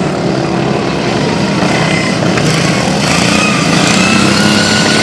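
Racing lawn mowers' small engines running loudly together, with a whining pitch that rises and grows a little louder from about halfway through as they speed up.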